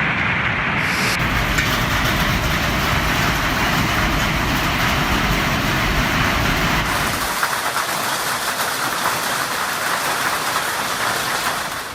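Hailstorm: hail and heavy rain pelting down in a dense, steady rattle. The sound shifts about a second in and again around seven seconds, where the low rumble drops away, as the footage changes.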